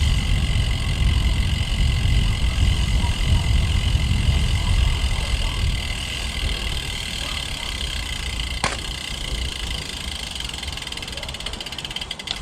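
Wind rumbling on the microphone of a road bike in motion, with a steady high buzz over it that stops with a sharp click about nine seconds in.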